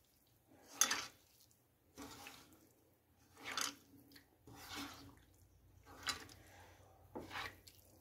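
Raw, wet prawns being mixed by hand in a nonstick pan: squishing and slapping in about six separate bursts, a little over a second apart, the first one loudest.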